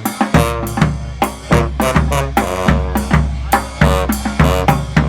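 Street band playing live: horn notes over a drum-kit groove with snare and bass drum. A low bass line comes in about half a second in.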